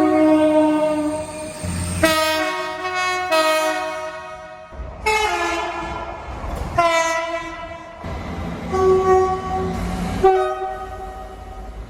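Train horn sounding a series of about seven blasts in quick succession, each around a second and a half long, some shifting pitch partway through. A low rumble of the train running comes in beneath the horn from about the middle.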